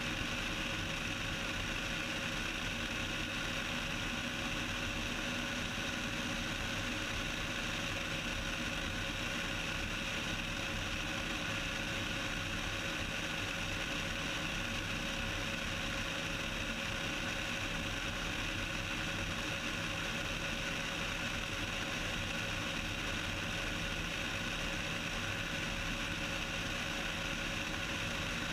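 Cessna 172's piston engine and propeller droning steadily in cruise flight, heard in the cockpit.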